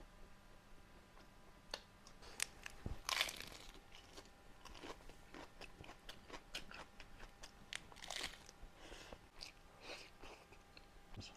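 Close-miked mukbang eating of chicken liver: a loud bite about three seconds in, then repeated wet chewing and lip-smacking clicks.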